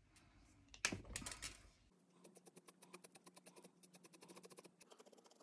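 Faint scratching of a dual tip art marker's nib on paper as it colours in quick back-and-forth strokes, heard as a rapid run of soft ticks from about two seconds in.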